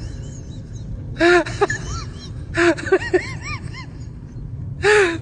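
Dog whining and yowling in short cries that rise and fall in pitch, coming in a few separate bunches over a steady low rumble.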